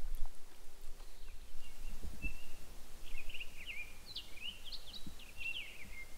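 Small songbirds chirping and twittering: a quick run of short high notes and sweeping calls that begins about a second and a half in, over a low background rumble with a soft thump near two seconds.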